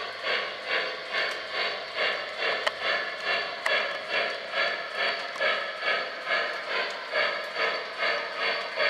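Model 2-8-2 steam locomotive's chuff sound running at a steady beat of about two and a half chuffs a second, with a few sharp clicks scattered through it.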